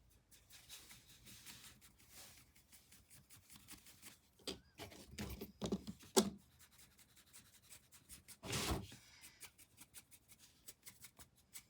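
Faint, scratchy rubbing of a paintbrush on canvas in short repeated strokes, with a slightly louder stroke about three-quarters through.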